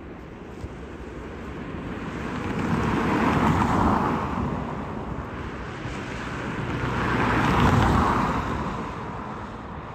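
Two vehicles passing one after the other, each a rush of noise that swells and fades over a few seconds, the first peaking a little before the middle and the second near the end, over steady outdoor background noise.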